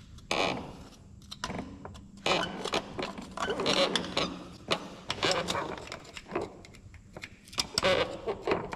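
A hand tool clicking and scraping on steel in irregular bursts as it works at a rounded-out square-drive plug under a truck, slipping without a grip on the fastener.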